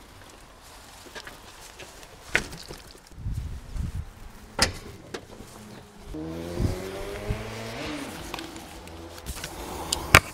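Knocks and clunks from a mountain bike being lifted out of the back of a van and the van's tailgate being shut. From about six seconds in, a passing motor vehicle's engine is heard, its note slowly falling.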